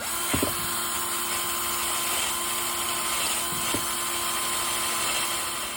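Handheld power grinder running steadily with a high whine, touching metal with a couple of brief knocks, then spinning down near the end. It is cleaning up the weld build-up on a snapped exhaust-manifold bolt.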